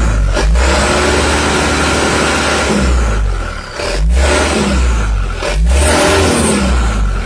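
Mitsubishi Canter truck's diesel engine revved hard and let fall back about three times, testing an exhaust brake that has just been adjusted to sound louder.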